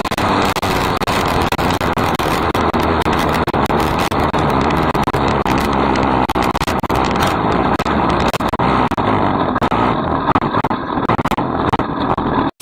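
270 micro sprint's engine running, heard from an in-car camera on the car, under a constant loud rush of noise with rapid crackling throughout.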